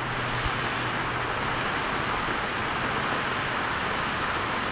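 Heavy rain pouring down, a steady even hiss with no letup.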